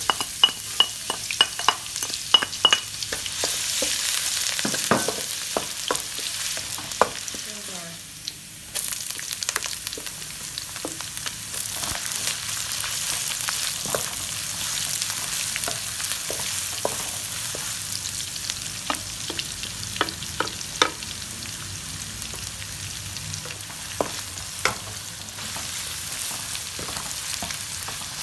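Minced garlic and julienned ginger sizzling in hot oil in a wok, stirred with a wooden spatula that knocks against the pan again and again. The sizzle dips briefly and comes back louder about nine seconds in.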